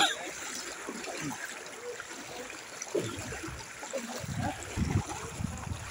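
Floodwater running across a flooded street, a steady trickling and rushing, with a low rumble for about a second starting about four seconds in.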